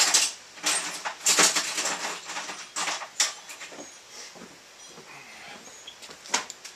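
Clanking and scraping of steel being handled on a workbench: a series of sharp metal clatters, with a longer scraping stretch about a second in and a single clank near the end.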